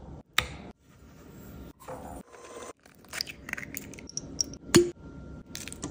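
Baking prep in a glass mixing bowl: slices of butter dropping in, then an egg cracked over brown sugar, heard as a scatter of soft taps, scrapes and a few sharp clicks.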